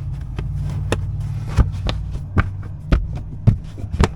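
Plastic side trim panel of a Tesla Model 3 center console being pressed into place: a series of about seven sharp clicks and knocks as its clips are pushed home, over a steady low hum.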